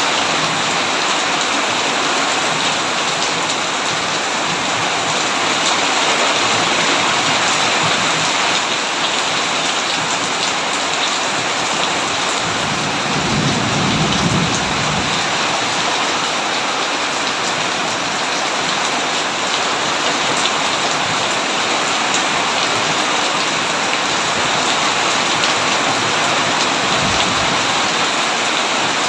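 Heavy rain falling steadily on a tin roof. About halfway through comes a brief low rumble of distant thunder.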